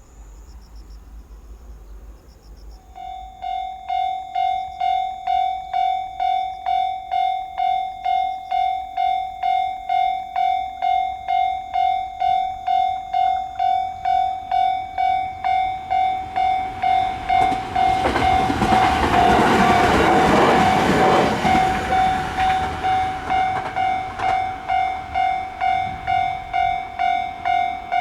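Japanese railway level-crossing alarm sounding a steady electronic ding about twice a second, starting about three seconds in. A train passes through the crossing midway, its rumble swelling and fading, loudest about two-thirds of the way through.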